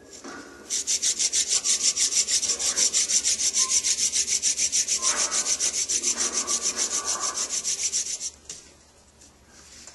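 Hand-drill friction fire: a sassafras spindle spun back and forth between the palms, rasping in the socket of a trumpet creeper hearth board in a quick even rhythm of about five strokes a second. It starts about a second in and stops near the end.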